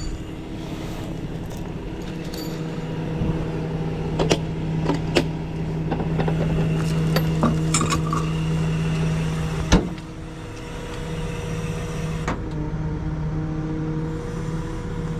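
Tow truck running with a steady hum that swells for several seconds while the wheel lift is worked, broken by several sharp metal clanks, the loudest as the hum drops back about ten seconds in.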